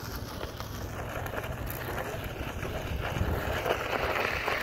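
Steady rumble and rustle of a wheeled lawn chair rolling over a dirt and gravel lot, with wind buffeting the microphone. The noise grows louder in the second half as the chair comes closer.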